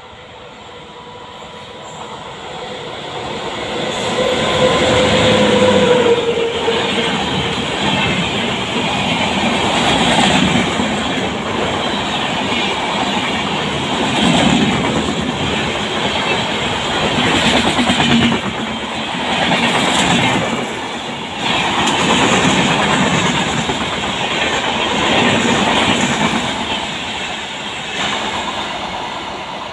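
Express passenger train hauled by a WAP-7 electric locomotive passing at speed. It builds to a loud, steady rush of wheels on rail with rhythmic clickety-clack over the rail joints, then fades as the last coaches pull away near the end. The locomotive's horn, held as it comes in, dips in pitch as it passes and stops about seven seconds in.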